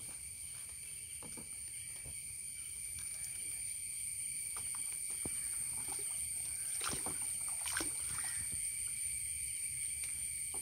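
Shallow pond water sloshing and splashing as a stick is worked through it, with a few sharper splashes about seven to eight seconds in. A steady high insect buzz carries on throughout.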